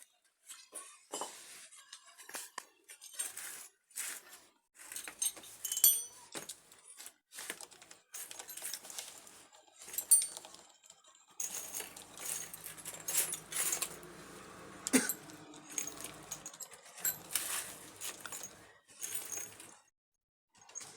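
Metal hand tools and engine parts clinking and clattering as an autorickshaw engine is assembled by hand, with sharp metallic clinks scattered throughout. A low steady hum comes in for about five seconds in the middle.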